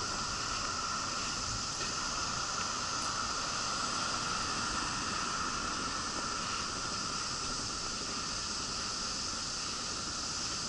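Steady hiss, even throughout, with a low rough rumble beneath it.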